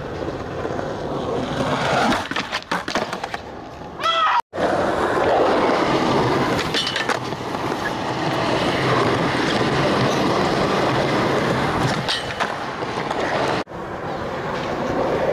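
Skateboard wheels rolling over concrete, with sharp clacks of the board striking the ground now and then.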